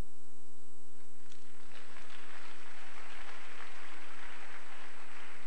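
Congregation applauding, the clapping building about a second and a half in and carrying on steadily, over a steady electrical hum.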